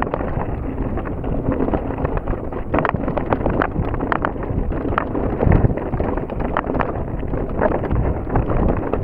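Mountain bike rolling down a rocky, shaley trail: tyres on loose stone and rock with many sharp knocks and rattles from the bike, and wind noise on the microphone.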